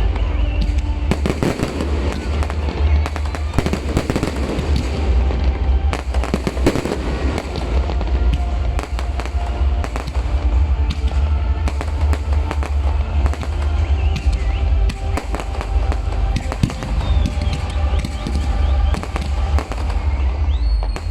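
Aerial fireworks going off in a dense, continuous barrage of bangs and crackles over a deep booming rumble.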